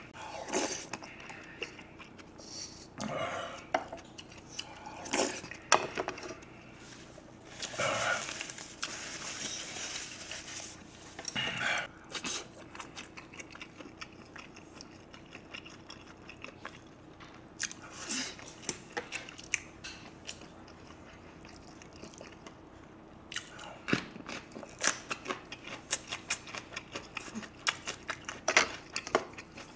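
Close-miked eating sounds: a spoon and chopsticks clink against glass and ceramic bowls, soup is slurped in a few longer noisy bursts, and there is wet chewing of rice, beef and sausage. In the last few seconds there is a quick run of small chewing clicks.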